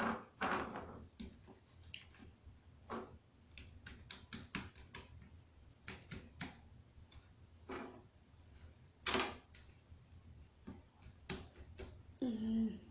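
Freshly made kit slime being squeezed and worked by hand, giving off irregular sticky clicks and small pops, a few louder ones, one about nine seconds in.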